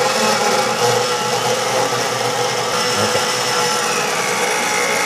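Countertop blender with a glass jar running at speed, blending milk, sliced bananas and peanut butter into a shake. The motor whine rises slightly in pitch in the second half.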